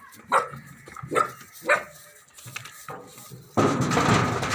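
A dog barking three times in quick succession, then a sudden loud, rough, noisy sound starting about three and a half seconds in and continuing.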